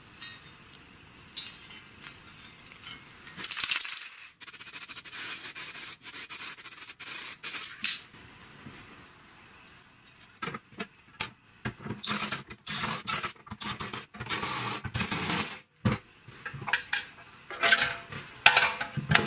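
Thin sheet-metal impeller and housing parts clinking, scraping and rattling as they are handled and fitted together, in a string of sharp clicks and short clattering bursts. A few metal knocks ring briefly near the end.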